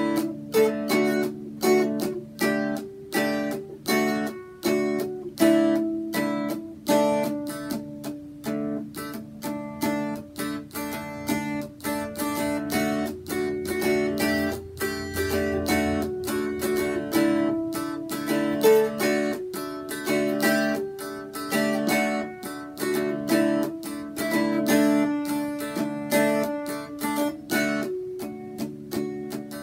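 Mountain dulcimer strummed in a steady rhythm, a melody fretted over ringing drone strings.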